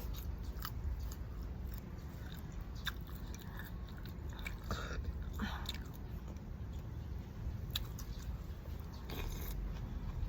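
A person chewing and eating a bowl of boat noodles close to the microphone, with scattered small crunches and clicks and a few brief slurping noises.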